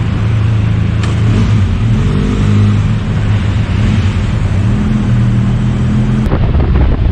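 Benelli TRK 502X's parallel-twin engine running at low speed with a steady low hum, its pitch stepping up briefly about two seconds in and again near the end. The sound changes abruptly just after six seconds.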